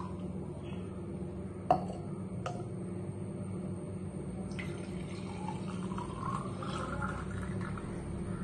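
Lemon water poured from a steel tumbler into a drinking glass, splashing and trickling as the glass fills, over a steady low hum. A sharp knock of the vessels comes a couple of seconds in, with a fainter one just after.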